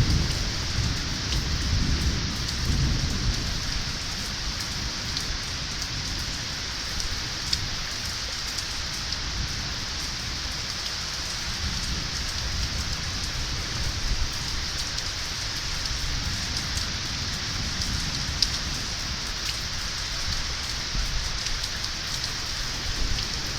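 Steady rain falling on surfaces in a thunderstorm, an even hiss. A low rumble of thunder dies away in the first couple of seconds.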